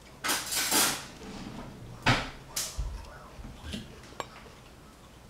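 Utensils against a plate while eating: a few short scraping sounds in the first half and one sharp clink about four seconds in.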